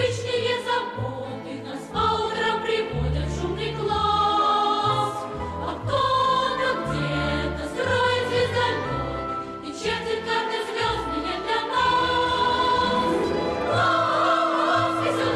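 A song: voices singing a melody over instrumental backing with a moving bass line.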